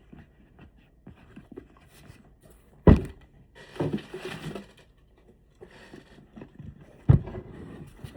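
Leather work boots being handled: two dull thumps, about three and about seven seconds in, with rubbing and rustling between.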